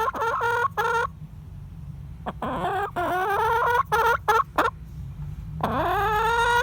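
Domestic hen clucking and squawking in three bouts of repeated calls, short clucks mixed with drawn-out rising squawks, the last one starting near the end.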